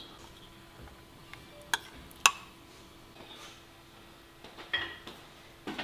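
Kitchen utensils clinking against dishes: two sharp clinks about two seconds in, with a few softer knocks near the end, over a faint steady hum.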